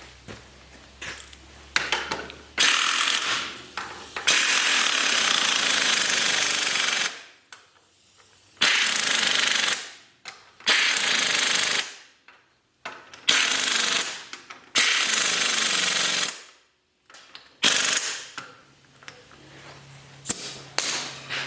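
Impact wrench running lug nuts onto a wheel hub in about seven bursts of a second or two each, with short pauses between.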